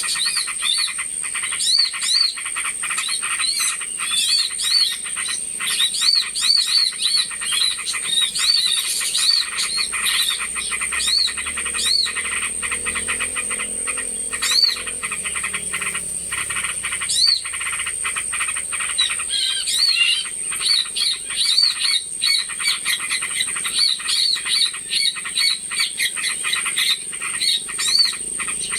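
Bird-lure recording of small birds calling all at once in a noisy mix. Dense, rapid chattering and many short rising-and-falling chirps sound over a steady high-pitched ringing tone.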